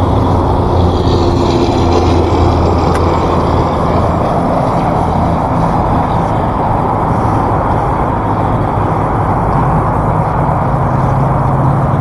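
Steady, loud rumbling noise with a low droning hum underneath, unchanging throughout.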